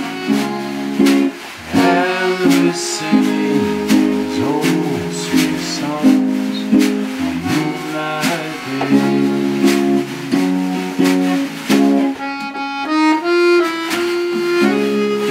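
Small acoustic band playing an old-time song: an archtop acoustic guitar strummed in a steady rhythm, an accordion holding chords, and a drum keeping time. About twelve seconds in, a bright high melodic passage stands out.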